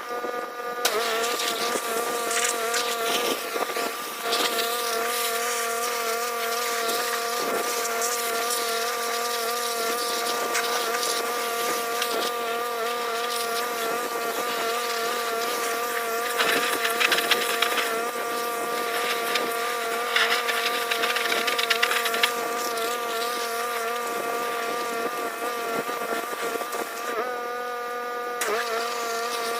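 Pressure washer running: a steady buzzing engine drone with the hiss of the water spray over it, the spray louder for a couple of seconds about halfway through and again a few seconds later.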